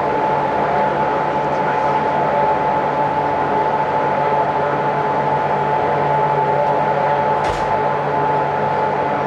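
Series 711 electric train running, heard from inside the car through an open window: a steady rumble of wheels on the rails with a steady hum. A single sharp click about seven and a half seconds in.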